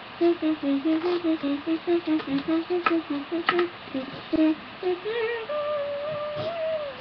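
A person humming a quick tune in short notes, about four a second, then holding one long, wavering note near the end. A couple of light taps sound in the middle.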